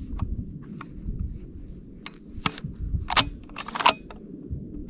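Sharp metallic clicks and clacks from handling a Tikka T3X bolt-action rifle, several short ones spread through, the loudest about three seconds in and a quick cluster just before four seconds.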